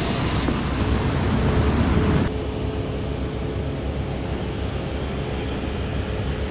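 Modified car exhaust running loud, swelling for about two seconds, then cutting abruptly to a steadier, quieter engine drone.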